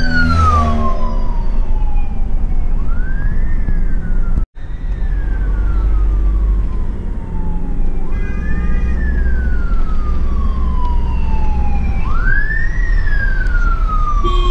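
A wailing emergency-vehicle siren, rising quickly and then falling slowly in pitch, about one cycle every four seconds. It is heard from inside a moving Volkswagen van over the van's steady engine and road rumble. The sound cuts out briefly about four and a half seconds in.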